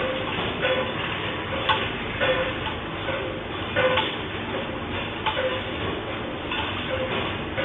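Rattling and clinking of things shaken by an earthquake, a rhythmic clatter with a knock about every half to three-quarters of a second.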